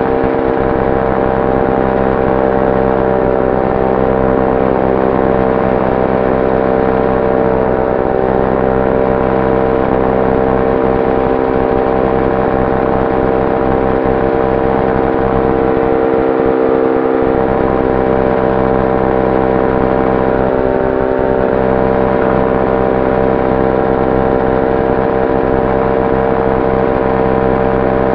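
Electric-powered ultralight aircraft in cruise: the motor and propeller make a steady drone, a fixed pitch with even overtones that does not change, heard from inside the cockpit.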